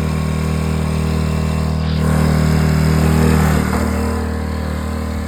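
ATV engine running, revving up a little about two seconds in, then easing back.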